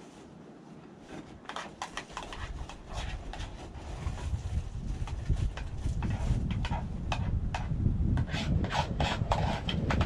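Wind buffeting the microphone, a low rumble that builds after the first couple of seconds. Over it come irregular clicks, taps and crackles of nearby handling or movement.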